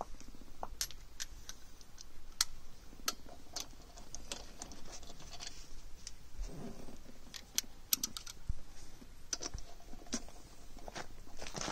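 Irregular small metallic clicks and clinks of lug nuts and a socket being worked onto wheel-spacer studs by hand.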